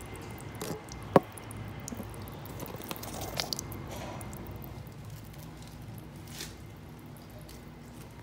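Water dripping and trickling from an open copper pipe onto concrete, with a few sharp clicks and taps; one click about a second in is the loudest.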